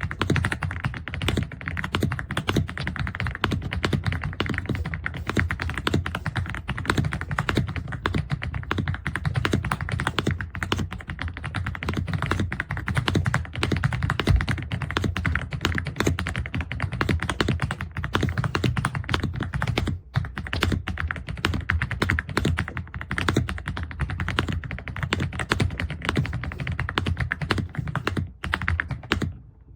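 Rapid, continuous typing on an EPOMAKER x Aula F65 gasket-mounted mechanical keyboard with Graywood V3 switches, dense key clacks with a short pause about two-thirds of the way through.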